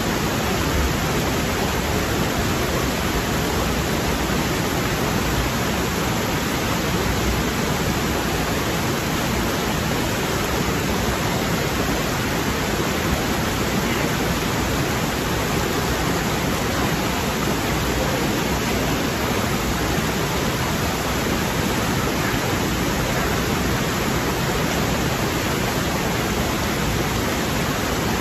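Shallow rocky stream rushing steadily over boulders and small cascades, a constant full hiss of running water.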